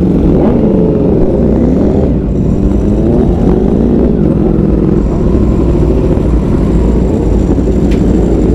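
Motorcycle engine under way, its pitch rising and falling as the revs change, over a heavy low rumble of wind and road noise.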